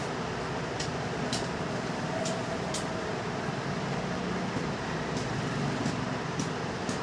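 Steady background hum and hiss, with a few soft, brief rustles and taps as a cloth cover is pulled over a foam sofa cushion.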